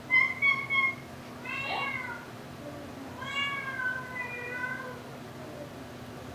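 Domestic cat meowing several times: a level call, a short one that rises and falls, then a longer call that falls in pitch.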